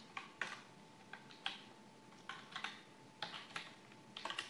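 Computer keyboard keystrokes: irregular typing, a few clicks a second, some coming in quick pairs.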